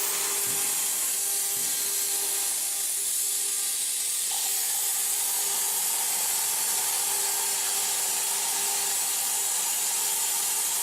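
CNC plasma cutter torch running, a steady hiss with a faint steady whine under it; a slightly higher tone joins about four seconds in.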